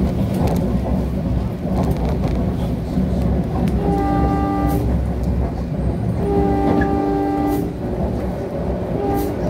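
NJ Transit Arrow III electric multiple-unit train running, a steady low rumble from inside the car. A multi-tone train horn sounds twice, about four seconds in and again at about six and a half seconds, the second blast longer, and starts again near the end.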